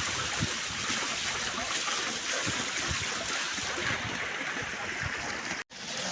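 Steady rushing of running water, with faint low thuds underneath; the sound cuts out for a moment near the end.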